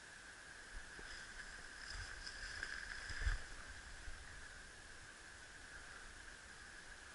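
Faint rustling of clothing and a few soft knocks as a rifle is raised to the shoulder, loudest about three seconds in, over the camera's steady hiss.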